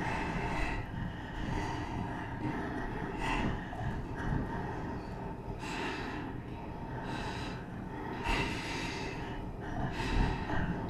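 Heavy, gasping breaths, about eight of them at irregular spacing, over a low steady rumble.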